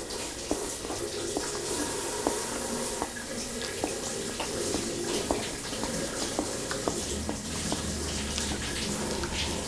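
Eating cold kimchi-broth noodles: wet slurping and chewing of the noodles and broth, with many small sharp clicks throughout.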